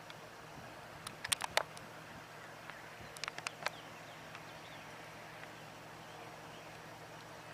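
Quiet open-air ambience with faint bird chirps, broken by two brief clusters of sharp clicks, about a second in and again about three seconds in.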